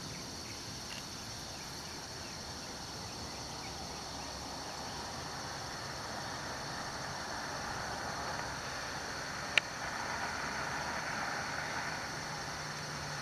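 Steady chorus of insects, with the noise of a vehicle swelling in the second half, and a single sharp click about two-thirds of the way through.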